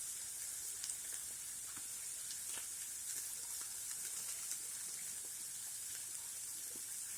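Onions sautéing in a pan, a steady sizzle, with a few faint ticks.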